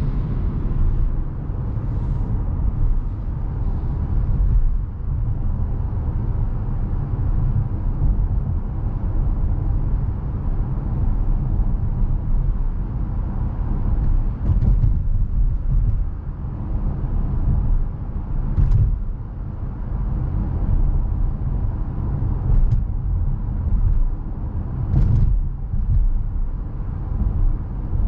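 Cabin noise of a 2020 Honda Pilot with a 3.5-litre V6 cruising at about 60 km/h. It is a steady, deep rumble of road and tyre noise, with a few brief louder swells along the way.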